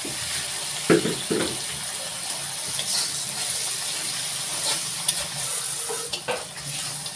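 Onion-and-spice masala paste sizzling in a kadai just after a little water has been added, stirred with a steel spatula. There is a steady hiss throughout, and the spatula knocks against the pan a few times, twice about a second in and again near the end.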